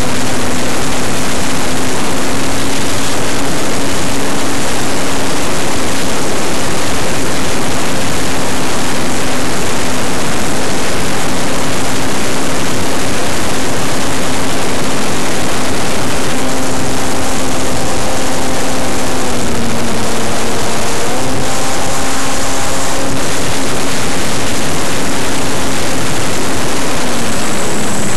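RC model T-28 Trojan in flight, picked up on board: a loud, steady rush of airflow noise over the drone of its motor and propeller. The propeller pitch dips briefly about twenty seconds in and again near the end.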